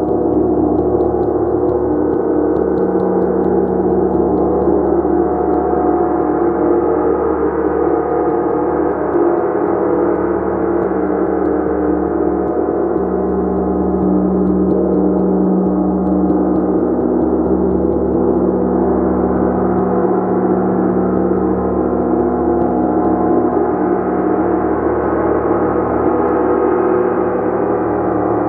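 Gong played continuously in a sound journey: a dense, sustained wash of many overlapping ringing tones that slowly swells and ebbs, with no single hard strike standing out.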